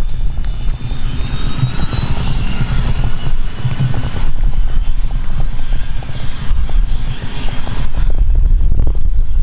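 Nextant 400XT business jet's twin Williams FJ44 turbofans at taxi power, a steady high turbine whine. Heavy wind buffets the microphone with a gusty low rumble underneath.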